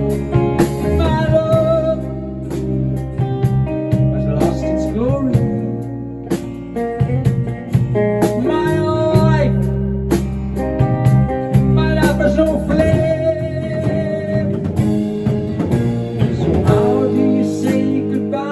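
Rock band playing live: guitar chords over bass and drums, in a passage between sung lines.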